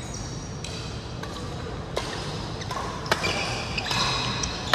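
Badminton rackets striking shuttlecocks with sharp pops, the loudest about three seconds in, with sports shoes squeaking on the court floor over the hall's background noise.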